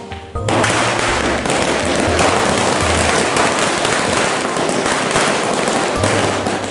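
A chain of firecrackers going off in a rapid, continuous crackle of small bangs, starting about half a second in.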